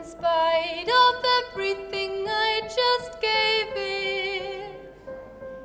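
A woman singing with vibrato over held chords on a Roland FP-80 digital piano. The voice stops a little before the end, leaving the piano notes ringing.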